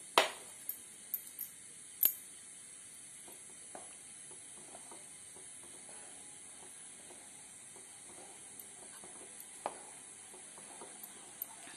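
A plastic spatula stirring soft mashed rice and whey in a nonstick pan, with a few sharp knocks of the spatula against the pan in the first two seconds and another near the end, over a faint steady hiss.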